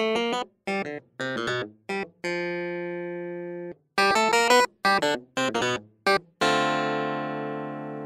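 Background music: a stop-start electronic keyboard tune of short quick notes broken by sudden silences, with two long held notes that slowly fade, one about two seconds in and one near the end.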